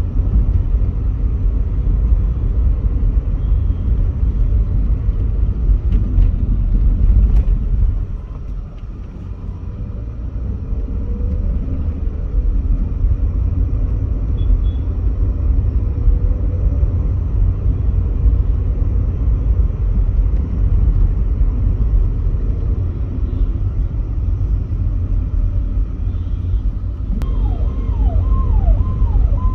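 Steady low rumble of road and engine noise inside the cabin of a Volkswagen Polo GT on the move. It drops in level about eight seconds in and builds back up over the next few seconds. Near the end comes a quick run of short falling tones.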